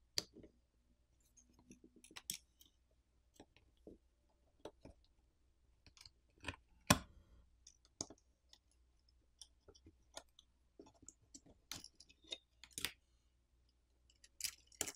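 Scattered small clicks and scrapes of a plastic pry pick and fingers working a metal plate loose from a phone's frame. The sharpest click comes about seven seconds in.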